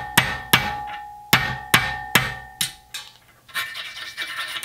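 A small hammer striking a steel punch to knock a sand core out of a brass casting clamped in a bench vise: about seven sharp metallic blows in the first three seconds, with a metallic ring hanging over them. A short stretch of scratchy rasping follows near the end.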